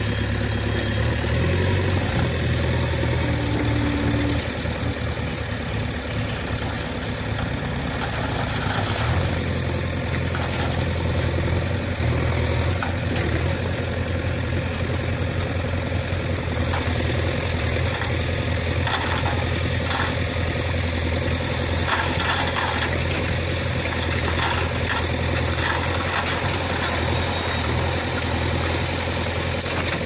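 Farm tractor's diesel engine running steadily while the tractor backs up a loaded trailer and raises its hydraulic tipper; the engine note changes about nine seconds in. Scattered clicks and rattles in the second half as the gravel load is tipped.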